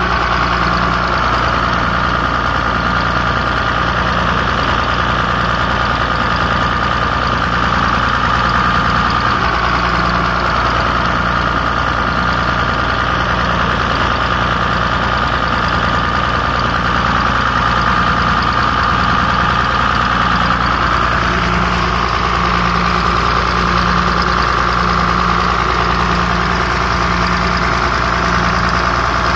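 Freshly overhauled Tata Cummins 6BTA turbocharged six-cylinder diesel engine running steadily on a test run, with a steady high whine over the engine note.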